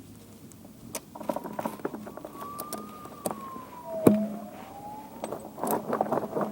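Steel snow chain links clinking and rattling as the chain is handled on a car tyre, in scattered sharp clicks with one louder knock about four seconds in. A faint tone slowly rises and falls in pitch behind them.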